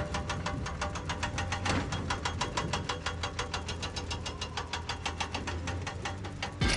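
Small electric motor of a model railway running with a steady low hum and rapid, even clicking of about eight to ten clicks a second, ending with a sharper click near the end.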